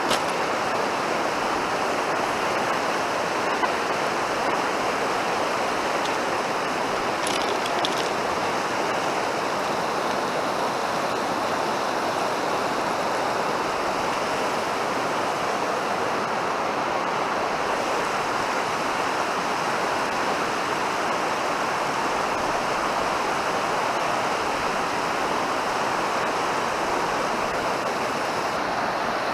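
Fast mountain stream rushing steadily, with a couple of faint clicks about seven seconds in.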